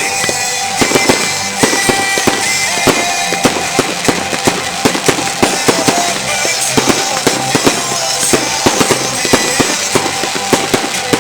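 New Year's Eve fireworks going off in rapid, irregular bangs and crackles, with music playing along.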